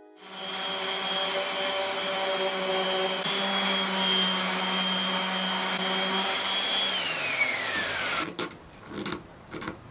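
Electric random orbital sander, running on a dust-extraction hose, sanding dried old glue off a wooden leg joint with a steady high whine. It switches off about seven seconds in, its pitch falling as it spins down. Near the end comes a series of short rasping strokes of sandpaper rubbed by hand on a wooden leg.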